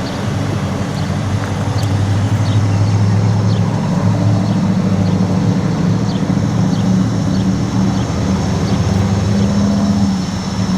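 Motor vehicle engines running, a steady low hum.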